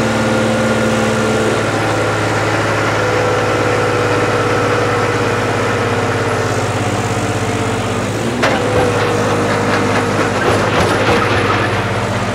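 John Deere tractor's diesel engine running at a steady speed under load as it drags a cultivator through hard soil. About eight and a half seconds in there is a sharp knock, followed by a few seconds of crackling and clattering.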